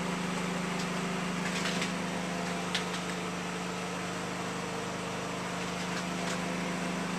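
Steady low machine hum over a haze of noise, with a few light clicks.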